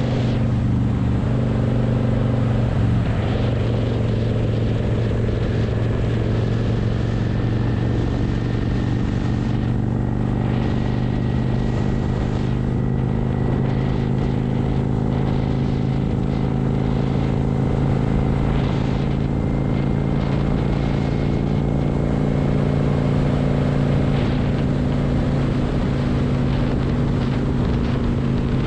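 Cruiser motorcycle engine running steadily at cruising speed, with the pitch shifting slightly about three seconds in, over a constant rush of wind and road noise.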